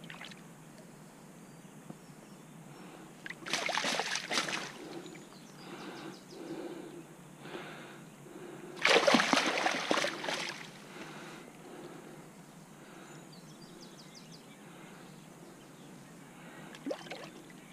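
Water splashing in two short bursts a few seconds apart, from a freshly landed fish flapping in the shallows.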